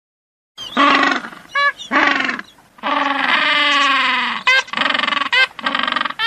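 Emperor penguins calling in a colony: a series of pitched, warbling calls, one long call in the middle, and a few short high whistles near the end.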